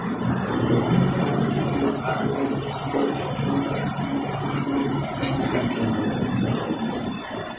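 Kitchen towel roll converting line running: a steady low machine hum with a faint repeating pulse, topped by a high-pitched whine. The whine rises over about the first second, holds steady, then falls away over the last two seconds, as a drive speeds up and slows down. A few light clicks come from the machinery.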